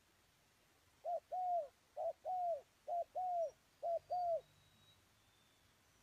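Spotted dove cooing: four two-note phrases, each a short note followed by a longer one, about one phrase a second.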